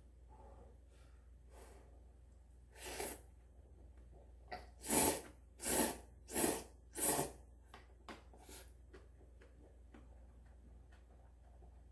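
A person slurping instant ramen noodles: one slurp about three seconds in, then a run of four loud slurps about two-thirds of a second apart, and a softer one after them.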